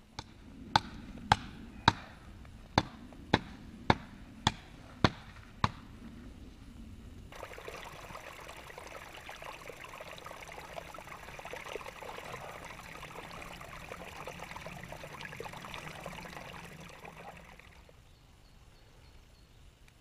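A series of about ten sharp knocks at an even pace of roughly two a second. Then a small snow-fed forest brook trickling over stones for about ten seconds, ending shortly before the close.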